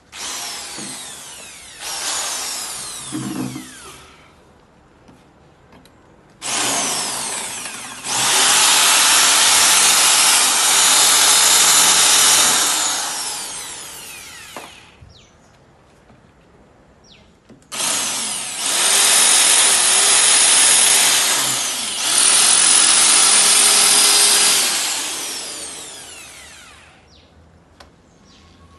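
Corded Einhell electric drill running in three bursts, a short one and then two long ones, with its motor winding down in a falling whine each time the trigger is released.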